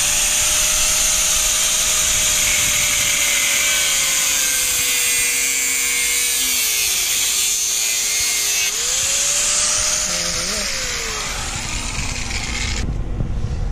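Angle grinder cutting through a metal BMX bike tube, with a steady high grinding hiss over the motor's whine. The motor's pitch sags under cutting pressure around the middle and again near the end, and the grinder stops near the end.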